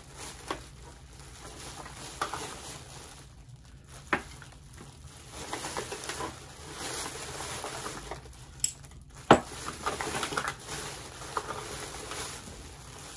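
Small items being handled on a table: scattered taps and clicks with soft rustling, and one sharper click about two-thirds of the way through.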